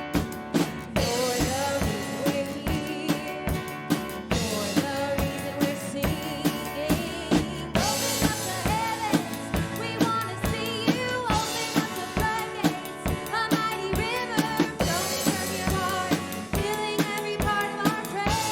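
Live worship band playing a praise song: a drum kit keeps a steady beat under sustained keys and guitar, with vocals singing over it.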